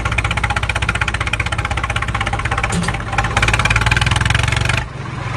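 Tractor engine running with a rapid, even chug, laid over the toy tractor as a sound effect. It drops away briefly near the end, then picks up again.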